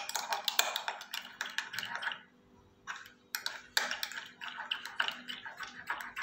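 Metal utensil stirring briskly in a small glass bowl, clinking against the glass in rapid taps, with a short break a little past two seconds in: an oil-and-vinegar dressing being whisked together.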